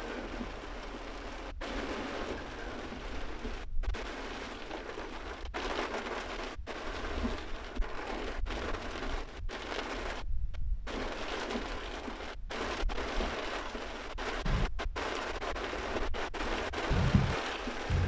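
Heavy rain drumming on a car's roof and windscreen, heard from inside the cabin as a steady hiss. It cuts out for a moment several times, and a few low thumps come near the end.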